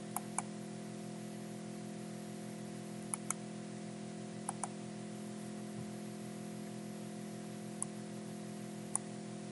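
Computer mouse clicks: several quick pairs of clicks and a couple of single ones, over a steady low electrical hum.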